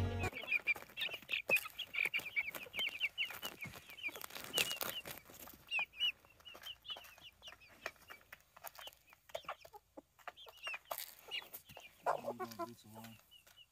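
Chickens feeding, with many short high peeping and chirping calls and soft clucks, and sharp clicks of beaks pecking at scattered corn.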